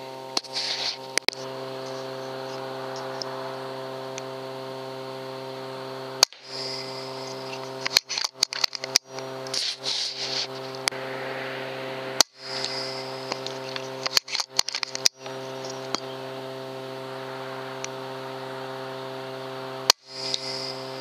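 Sharp cracks of a PCP air rifle (FX Impact) firing, three times about six to eight seconds apart, with bursts of small clicks between them. A steady electrical hum runs underneath throughout.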